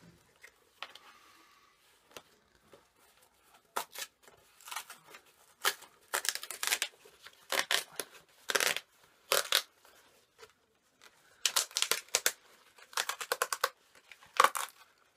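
Packaging being torn open by hand: a quiet start, then repeated short rips in clusters, with pauses between pulls, from about four seconds in.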